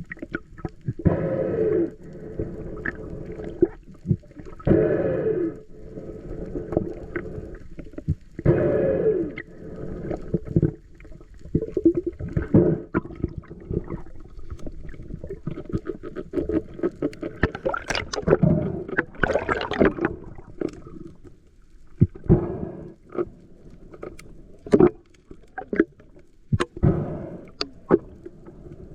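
Spearfisher's breathing through a snorkel, three long breaths about four seconds apart, then irregular splashing and gurgling water.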